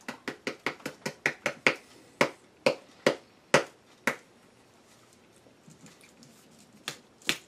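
Upturned plastic canister of grated cheese being shaken and tapped by hand: a quick run of about a dozen sharp knocks, roughly three a second, over the first four seconds, then two more near the end. The cheese is stuck and won't come out.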